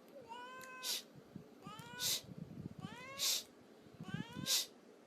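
A domestic cat meowing four times at an even pace, each meow rising then falling in pitch and ending in a short hissy burst.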